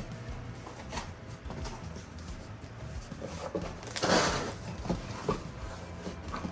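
Cardboard box and packaging being handled while speakers are lifted out: scattered light knocks and clicks, with a louder rustling scrape about four seconds in.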